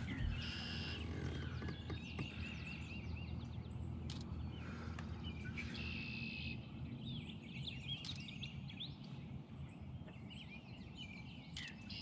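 Background birdsong: several birds chirping and singing, with a steady low hum underneath that fades out about two-thirds of the way through.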